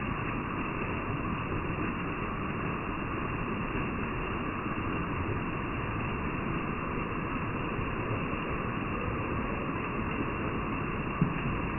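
Steady rushing of a waterfall and stream over rocks, with one brief knock near the end.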